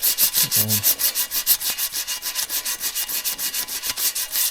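Sandpaper scraping on an aluminium bike frame in rapid, even strokes, about seven or eight a second, stripping the paint back to bare metal.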